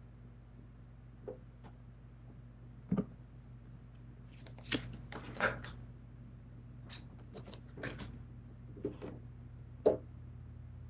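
Tarot cards being handled and laid down on a table: a series of short taps and slides of card on card, the sharpest near the end, over a low steady hum.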